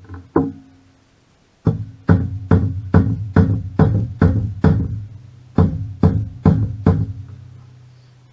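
Hammer blows on metal engine parts, about two strikes a second, each one ringing; two light knocks at the start, then about a dozen hard blows with a short pause in the middle.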